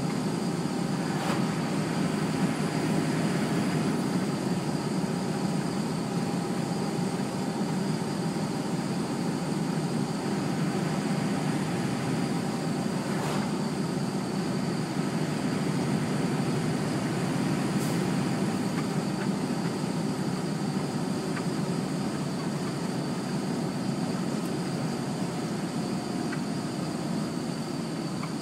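Steady road noise inside the cabin of a moving vehicle: a constant low rumble from tyres and engine as it drives along.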